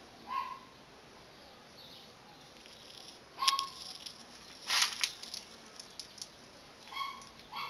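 Shrub leaves and twigs rustling and scraping against the camera as it pushes into the branches, with a sharp click about halfway through and a short rustling burst soon after. A few brief high tones are heard near the start and near the end.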